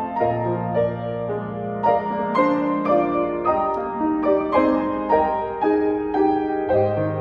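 Grand piano playing a hymn tune in full chords over held bass notes, at a steady, moderate pace.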